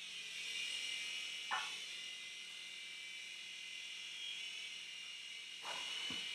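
Small electric RC toy helicopter's motor and rotor whirring with a steady high-pitched whine, with one short click about a second and a half in.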